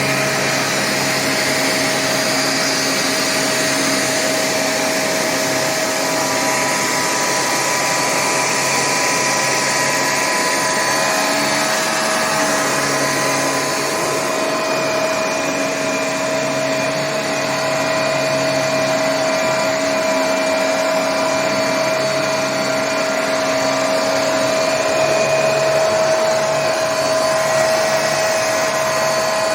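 Hoover HMC510UV handheld mattress vacuum cleaner running steadily as it is passed up and down over a mattress, its motor giving a constant whine over the rush of suction.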